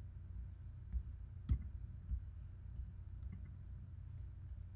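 A few scattered clicks from working a computer, the loudest about a second and a half in, over a faint low hum.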